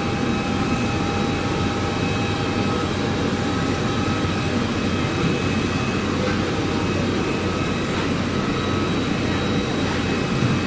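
Bombardier BD100 Challenger business jet's twin turbofan engines running, a steady rumble with several high, held whining tones on top.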